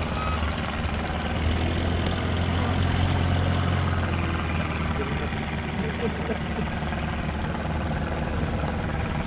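Continental O-200 air-cooled four-cylinder aero engine and propeller of a Pietenpol Air Camper droning steadily in flight, its low hum easing a little after about four seconds as the plane climbs away.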